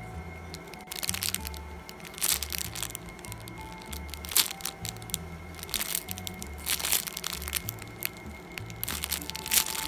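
Clear plastic bag crinkling and crackling in irregular bursts as a bagged squishy toy is handled and squeezed, over background music with a steady repeating bass.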